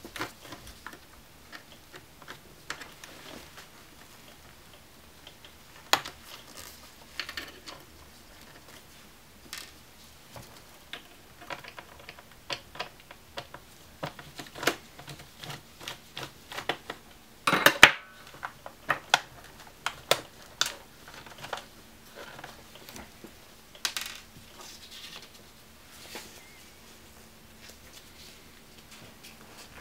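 Irregular small clicks and taps of a screwdriver working the screws out of the plastic LCD bezel of an Asus X54C laptop, with a louder clatter of several knocks about 18 seconds in.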